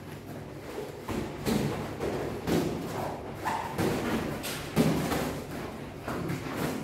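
Boxing gloves landing on gloves and padded headgear in sparring: irregular dull thuds about once a second, the loudest nearly five seconds in.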